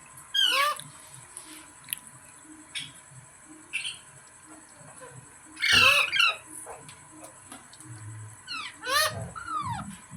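Green parrot squawking: three loud, harsh calls, each falling in pitch, about half a second in, near six seconds in and about nine seconds in, with short quieter chirps between them.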